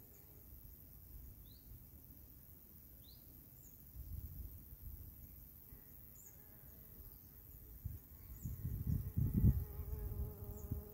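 Mammoth wasp (Megascolia maculata) buzzing at a thistle flower, a faint steady drone that comes through more clearly in the second half. Low rumbling noise swells about four seconds in and more strongly from about eight seconds, and faint short high chirps repeat every second or two.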